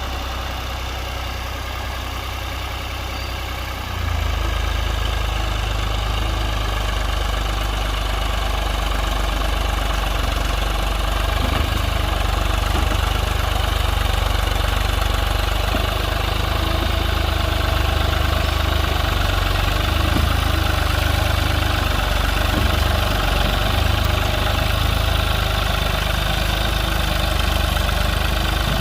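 Ford tractor engine running steadily. About four seconds in it becomes louder and heavier in the low end, then holds at that level.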